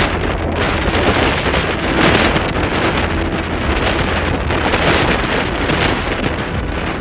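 Strong typhoon wind buffeting the microphone in gusts, over the rumble of heavy surf.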